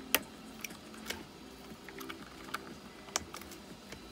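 Scattered light plastic clicks and taps from hands working the elastic head-harness straps and plastic buckle of a replica M50 gas mask, with one sharper click just after the start.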